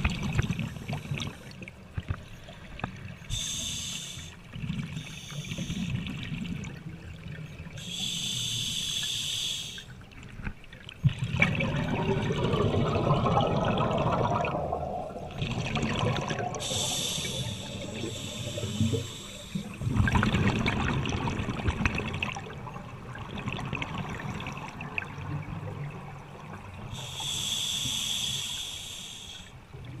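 Scuba diver breathing through a regulator underwater. Each sharp hiss of inhalation is followed by a bubbling, rumbling rush of exhaled air, in a slow, uneven cycle. The exhalations are the loudest part.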